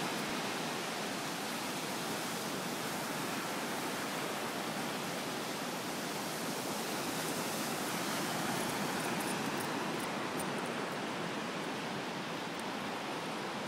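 Steady rushing hiss of ocean surf breaking along the shore.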